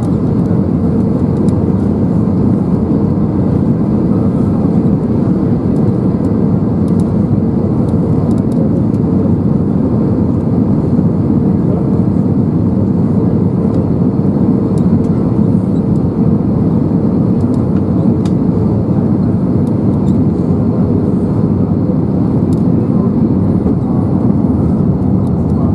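Steady in-cabin noise of an Airbus A320neo on approach, heard from a window seat by the wing: a dense, low rush of its Pratt & Whitney PW1100G geared turbofans and the airflow. A faint steady hum sits on top and fades about halfway through.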